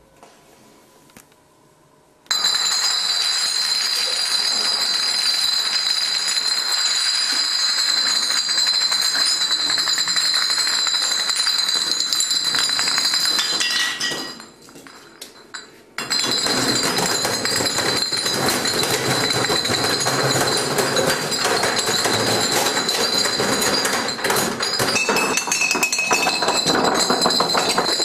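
A long chain of glass beer bottles toppling one into the next: a dense, rapid clinking and clattering of glass on glass with a bright ringing. It starts about two seconds in, breaks off for a couple of seconds around the middle, then starts again.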